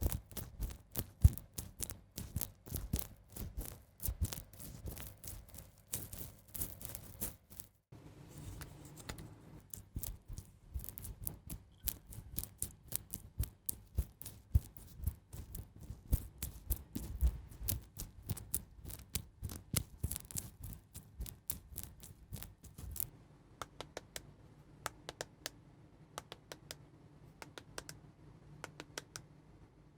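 Close-up ASMR tapping, clicking and scratching on makeup items: a quick, dense stream of light taps that thins to scattered clicks near the end.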